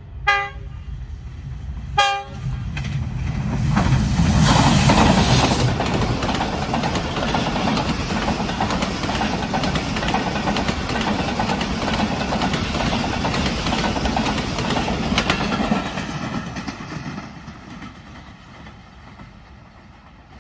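Pakistan Railways GEU20 diesel-electric locomotive sounds its horn in two short blasts about two seconds apart. It then passes close by, and its train of coaches rolls past with steady loud wheel-and-rail noise that fades away near the end as the train recedes.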